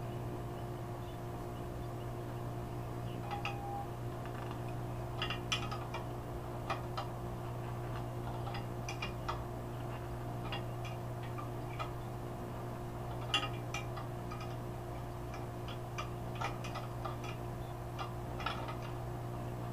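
Wrench turning out a sheared bolt that has been tack-welded for grip, with irregular sharp metal clicks and ticks in small clusters, over a steady low hum.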